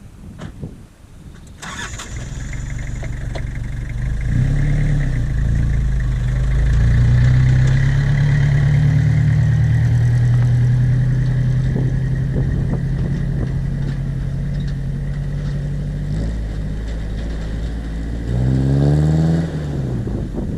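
Nathan PK3 locomotive air horn, fitted with P1, P4 and K1L bells, sounding a long low chord. It starts sharply about two seconds in, builds over the next couple of seconds and holds steady, and near the end its pitch swoops up and back down.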